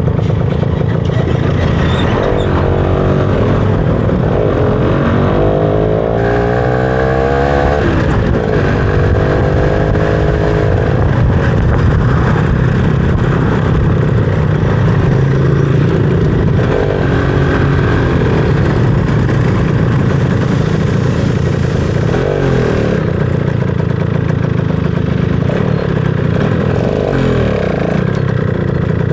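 Motorcycle engine under way, revving up with a rising pitch a few seconds in, then dropping after about eight seconds and running on at a steadier pitch.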